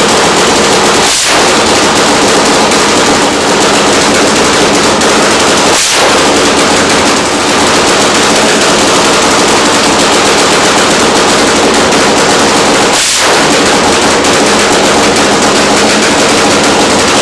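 Nitromethane-fuelled Harley-based V-twin engine of a Super Twin Top Fuel drag bike running steadily and very loud through its open exhaust pipes.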